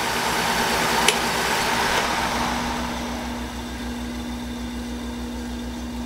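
Air-handler blower motor winding down once the thermostat's cooling call is switched off: its steady air rush fades over a few seconds, with a single sharp click about a second in and a low hum left at the end.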